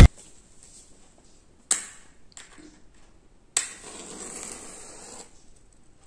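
A matchstick struck on a matchbox: one scrape about two seconds in, then a second strike that catches, followed by the hiss of the match head flaring for about a second and a half.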